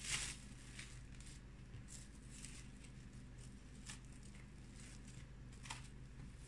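Plastic cling film crinkling as it is wrapped tightly around a log of cookie dough: a few brief, faint rustles, the loudest right at the start, over a low steady hum.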